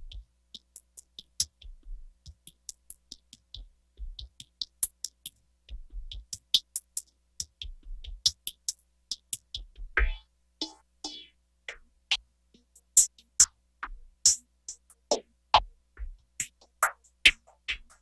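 Background electronic music: sparse drum-machine clicks and low thumps in an uneven pattern, with no melody.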